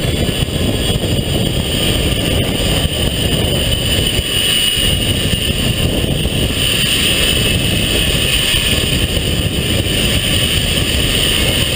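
Zip wire ride at speed: wind rushing over the microphone, with the steady high whine of the trolley's pulley wheels running along the steel cable.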